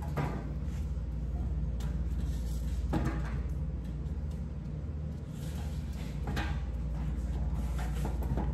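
Handling knocks and scrapes as an object is moved and set in place, four or so short knocks a few seconds apart over a steady low hum.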